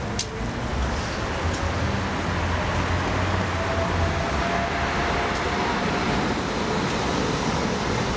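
Street traffic noise: a steady hum of passing vehicles, with a heavier low rumble in the first few seconds and a faint thin whine in the middle.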